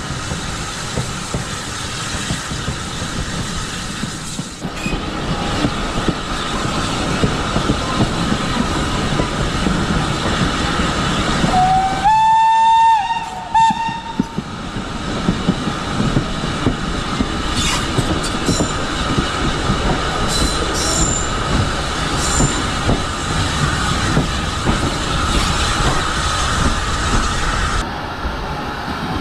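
Heritage steam train running, with the locomotive's steam whistle sounding about twelve seconds in. The whistle gives one long note that rises slightly as it opens, then a short second toot.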